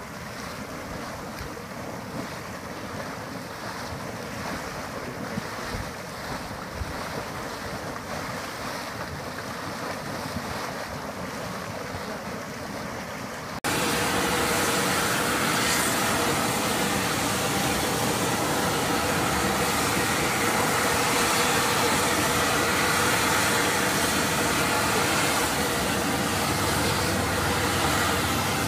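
Steaming grey mud pot giving a steady, noisy churn. About fourteen seconds in it cuts to a louder, steady hiss of steam venting from a pink mud pot.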